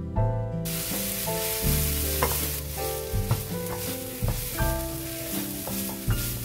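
Grated coconut sizzling and frying in a wok of hot melted sugar and oil as it is stirred and scraped with a spatula; the sizzle sets in sharply about half a second in as the coconut hits the pan. Light instrumental background music plays underneath.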